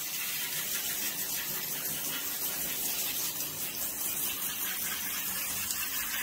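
Handheld shower head spraying a steady stream of water onto a puppy's coat and the bathtub floor.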